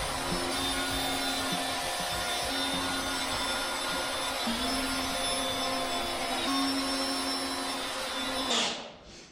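Electric circular saw running through a board, its motor whine shifting in pitch as the load changes, then shutting off near the end.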